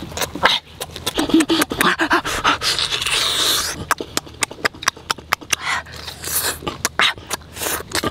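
Close-up eating sounds of a person chewing and sucking meat from roasted turtle: rapid wet lip smacks and mouth clicks, a few short hums, and a longer sucking slurp about three seconds in.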